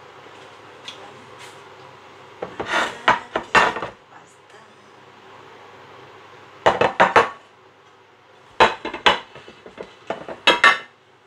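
Ceramic dinner plates clattering as they are handled and set down on a countertop, in four short bursts of clinks and knocks.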